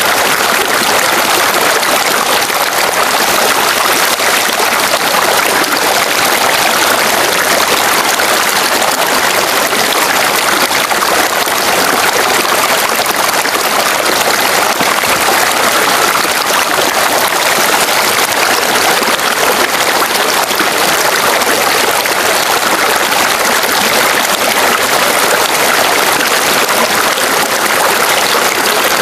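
Two bathing-pool water spouts pouring from a stone wall into the pool, a loud, steady rush and splash of falling water.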